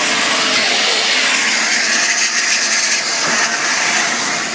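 Vacuum cleaner running steadily with a loud, even hiss, sucking out water drained from a washing machine.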